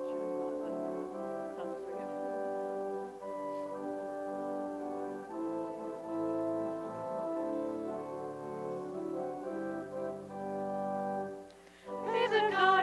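Instrumental introduction to a hymn, played in held, sustained chords. Shortly before the end it breaks off briefly, and voices begin singing the hymn.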